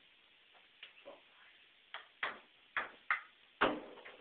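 Ping-pong ball in a rally, clicking as it bounces on the table and is batted back with wooden-framed stools instead of paddles. A few faint ticks come first, then about six sharp clicks in quick pairs from about halfway in.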